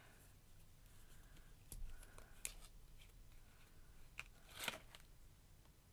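Near silence broken by a few faint clicks and small handling sounds from a plastic dropper bottle of liquid watercolor paint being turned and worked in the hands. The loudest click comes about two-thirds of the way in.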